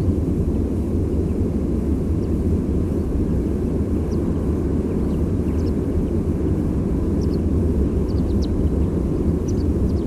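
Steady low rumble of distant sea surf with faint, brief high call notes of small migrating songbirds passing over, a few at a time, more of them in the second half.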